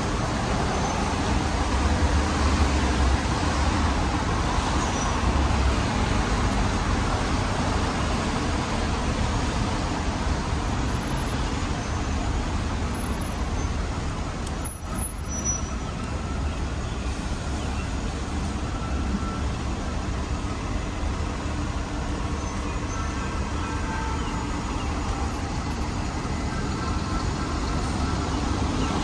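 City street traffic on rain-wet roads: a steady wash of tyre and engine noise with a heavier low rumble from about two to six seconds in.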